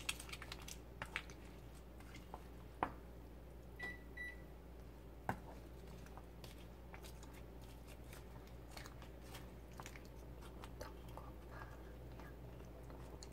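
A spatula stirring tteokbokki in a pan: faint scattered clicks and taps of the utensil against the pan, with a few sharper knocks. A short double beep about four seconds in, over a steady low hum.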